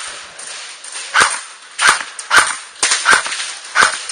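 Airsoft AK-74 rifle firing about six single shots at uneven intervals, each a sharp crack, starting about a second in.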